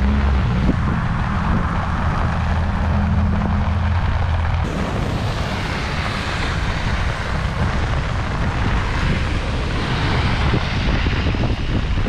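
Heavy rain and fast-running floodwater, a steady rushing hiss, with wind buffeting the microphone in a deep rumble for the first four and a half seconds; then the sound cuts abruptly to a brighter rushing of rain and flowing water.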